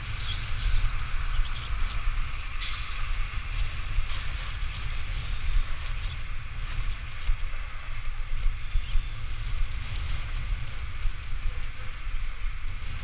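Wind buffeting the microphone of a moving action camera: a steady, uneven low rumble with a hiss of road noise over it, and one sharp click about two and a half seconds in.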